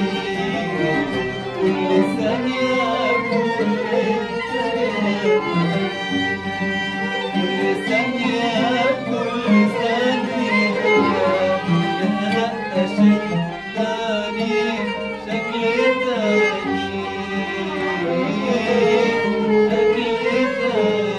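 A man singing an Arabic song while plucking an oud, with a second string instrument playing along.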